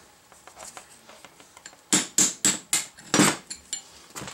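Ball-peen hammer striking steel on a Datsun steering knuckle during kingpin removal: a quick run of about six ringing metal blows, roughly four a second, about two seconds in. Lighter clinks of steel parts being handled follow.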